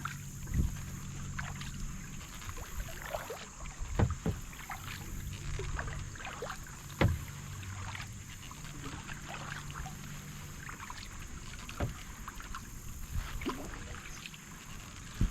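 Kayak being paddled: water splashing and dripping off the paddle, with a few sharp knocks at irregular intervals, the loudest about four and seven seconds in.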